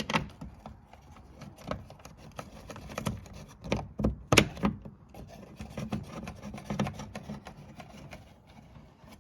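Irregular clicks, knocks and rubbing of hard plastic parts being handled, as a car door panel and door-handle assembly are moved about, with one louder knock about four and a half seconds in.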